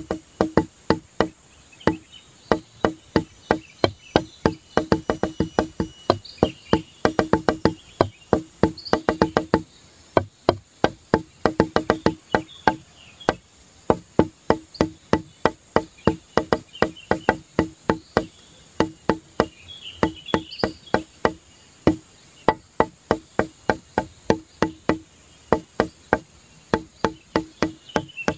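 Background music: a repetitive, plucky percussive tune of short woody clicking notes, several a second, in a steady looping rhythm.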